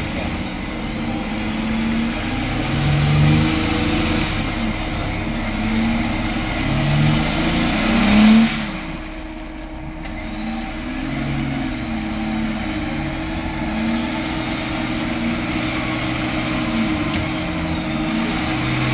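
Jeep Wrangler Rubicon's engine revving up and down again and again as it crawls out of a mud hole on a winch line. The revs surge loudest about eight seconds in, then settle to a steadier pull.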